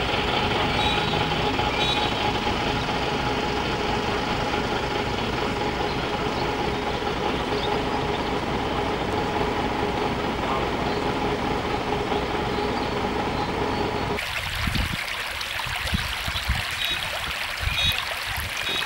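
A steady mechanical hum like an idling engine, with two steady tones in it. About 14 seconds in it cuts abruptly to shallow floodwater streaming across a road surface, a rushing sound with occasional low thumps.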